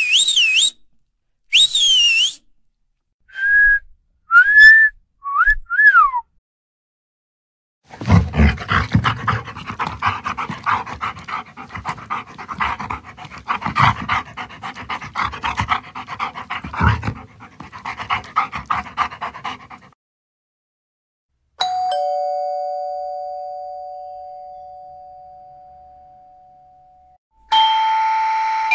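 A warbling whistle, then a few short sliding whistle notes; then a dog panting fast for about twelve seconds; then a two-tone ding-dong doorbell chime that rings out and fades slowly, with the doorbell chiming again near the end.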